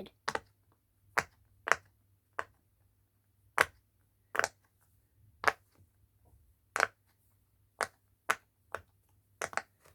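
Bubbles of a round silicone pop-it fidget toy pressed one at a time from its noisy side: about a dozen short, sharp pops at irregular intervals of roughly a second.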